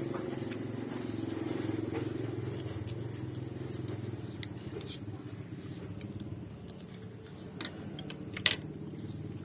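A few sharp clinks of tableware, the loudest near the end, over a steady low hum.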